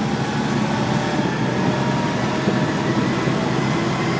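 ATV engine running steadily while riding, an even mechanical drone with a faint high whine over it.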